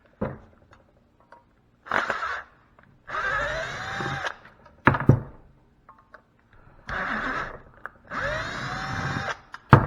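Cordless power drill/driver running in four short bursts, its motor whining up in pitch at the start of each run, with a few sharp clicks and knocks of hard parts in between.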